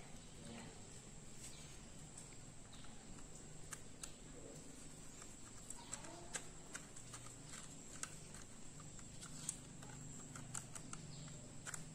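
Faint, scattered clicks and taps of a screwdriver and a metal laptop drive caddy as the caddy's side screws are turned to fasten a 2.5-inch SATA SSD into it.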